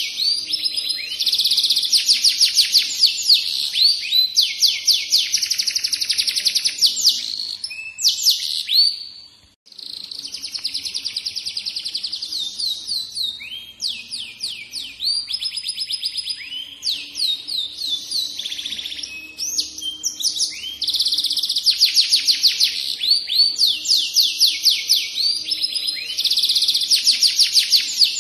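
Domestic canary singing a long, continuous, high-pitched song of fast trills and rolling runs of repeated notes, broken once by a brief pause about nine seconds in.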